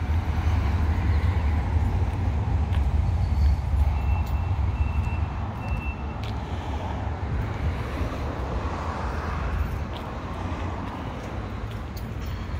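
Road traffic noise: a steady rumble of passing vehicles, heavier over the first five seconds or so and then easing off.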